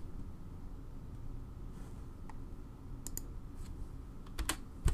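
Scattered sharp clicks of a computer mouse and keyboard, a few faint ones from about two seconds in and the loudest pair near the end, over low background noise.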